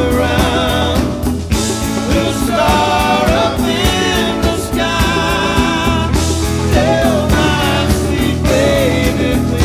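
A song plays: a singing voice over instruments, with a steady beat.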